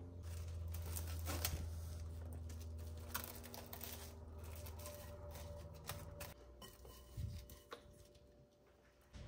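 Plastic cling film crinkling and crackling in irregular sharp rustles as it is pulled and stretched over a glass mixing bowl, with a steady low hum underneath that fades out partway through.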